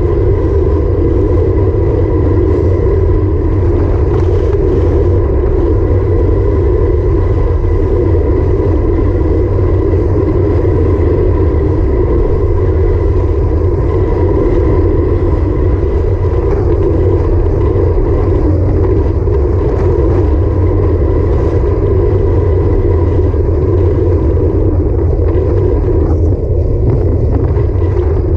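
Steady wind rush and road noise on the microphone of a handlebar-mounted action camera on a road bike moving at about 22–23 mph, heavy and low.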